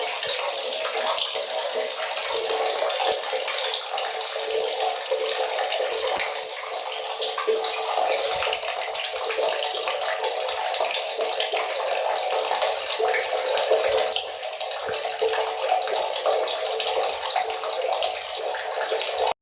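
Water running from a tap in a steady stream and splashing.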